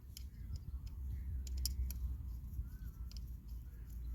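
A handful of light, sharp clicks and taps from hand work on e-bike parts with a screwdriver, scattered over a steady low rumble.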